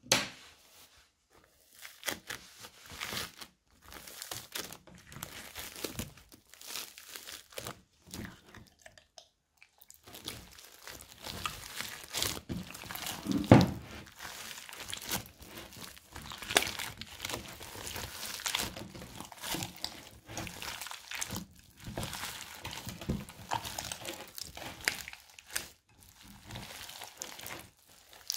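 Polystyrene foam bead bricks crunching and crackling as hands press and knead them into slime. The crackles are sparse for the first ten seconds or so, then turn dense and continuous, with one louder crunch about halfway.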